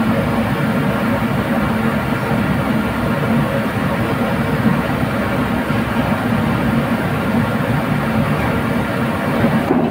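Drilling rig machinery running steadily and loudly, a dense mechanical din with a low hum and no breaks.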